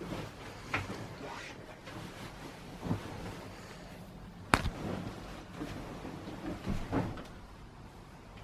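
Scattered knocks and bumps of things being handled, with one sharp click about halfway through that is the loudest sound.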